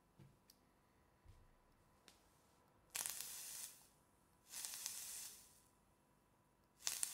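Person vaping on a Goon 1.5 clone dripping atomizer: three breathy hisses of air drawn through the atomizer and vapour blown out, the first about three seconds in and the last near the end, with a few faint clicks before them.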